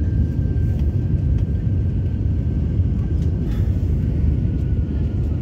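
Cabin noise of an Airbus A321-231 on final approach: a steady low rumble of its IAE V2500 engines and the airflow, with a faint steady whine above it.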